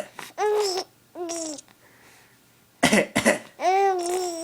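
A baby laughing in response to coughing: two short high-pitched laughing squeals, a pause, a quick run of coughs about three seconds in, then a longer squealing laugh.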